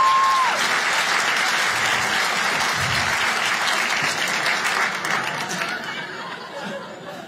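Audience applauding and cheering, with a whoop at the very start; the applause dies away over the last couple of seconds.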